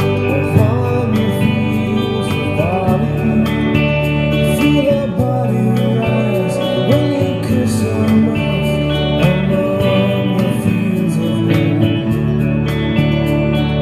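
Gretsch hollow-body electric guitar playing a slow melody, its notes bending and wavering in pitch, over sustained low notes that change every few seconds.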